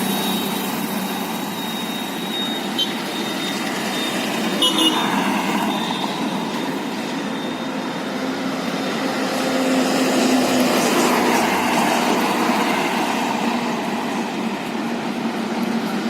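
Railway locomotive running onto a bridge: a steady rumbling, rattling noise with a faint high whine during the first six seconds and a few short clicks about 3 and 5 seconds in.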